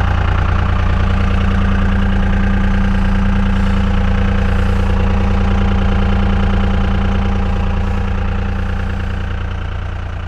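24-valve Cummins VP44 diesel with a straight-piped exhaust idling steadily in its cold-start high idle, firing on only three cylinders to warm up, heard from inside the cab. The sound fades out near the end.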